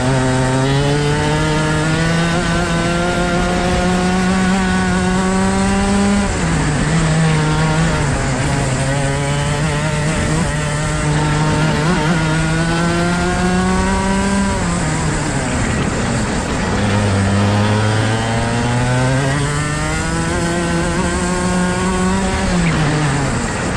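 Rotax Max 125cc single-cylinder two-stroke kart engine under full throttle: the revs climb steadily down each straight, then drop sharply as the throttle is lifted for a corner, about six seconds in, again for a longer, slower corner midway, and once more near the end.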